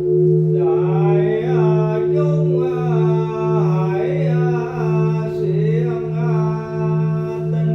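A steady bell drone that pulses slowly, with a voice chanting over it in long, gliding tones from about half a second in.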